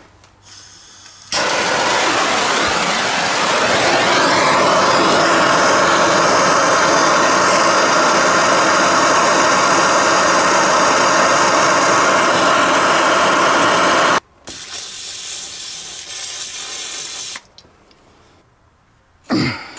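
Handheld gas torch burning with a steady loud hiss, heating a seized power steering line fitting on the steering box to free it. The hiss starts about a second in and cuts off sharply after about thirteen seconds, followed by a quieter hiss for a few seconds.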